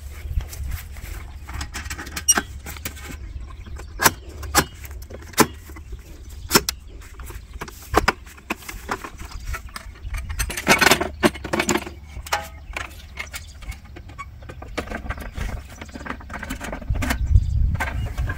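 OOX metal folding griddle stand being taken down: sharp clicks and knocks of its legs and shelf panels folding and latching, with a denser rattling clatter about ten to twelve seconds in, over a steady low wind rumble on the microphone.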